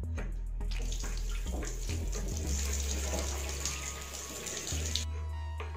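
Steady rush of running water that cuts off suddenly near the end, over soft background music.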